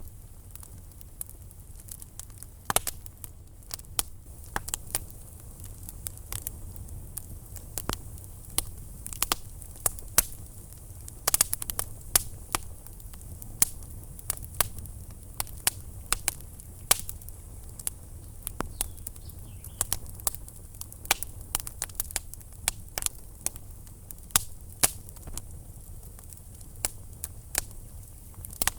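Wood fire burning in a fireplace, crackling and popping in irregular sharp snaps, with a cluster of louder pops about 11 seconds in, over a steady low rumble of the flames.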